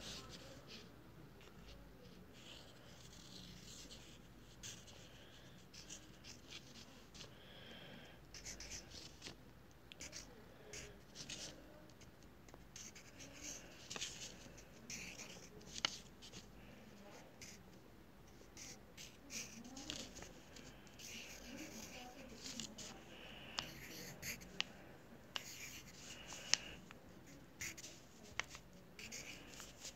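Pencil writing on paper: short, irregular scratchy strokes and light taps as numbers are written one after another.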